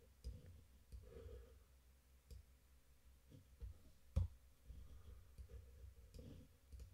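A few faint computer mouse clicks, the loudest about four seconds in, over quiet room tone.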